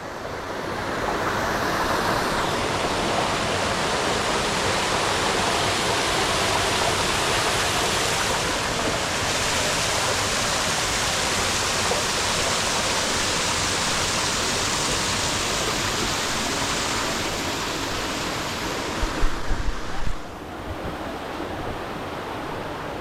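Waterfall rushing: a steady, loud roar of falling water that drops in level about twenty seconds in, just after a few low thumps of handling or wind on the microphone.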